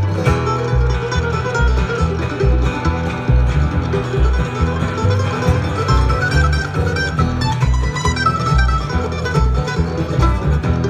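Live bluegrass string band playing an instrumental break without vocals: fiddle, acoustic guitar and mandolin over steady upright-bass notes.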